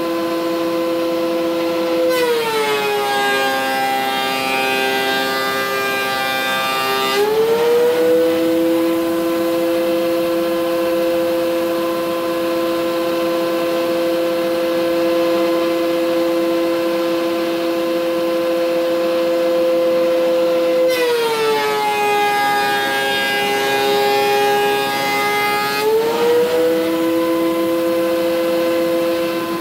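DeWalt DW735X thickness planer running with a steady motor hum. Twice, about 2 s in and again about 21 s in, the motor bogs down in pitch as a board feeds through, with harsh cutting noise for about five seconds. It then glides back up to free-running speed as the board leaves the cutter.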